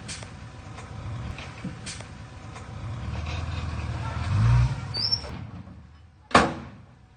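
Diesel engine of heavy earth-moving machinery running low, with scattered clanks and knocks. The engine swells briefly about four and a half seconds in, then fades away. A single sharp, loud bang near the end is the loudest sound.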